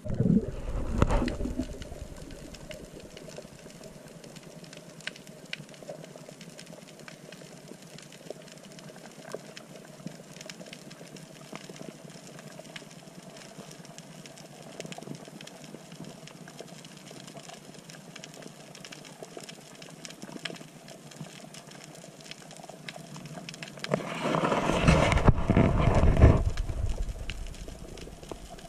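Underwater sound through an action-camera housing: a faint steady hum with scattered faint crackling clicks. Loud, deep rushing water noise comes briefly at the start and again for about three seconds near the end.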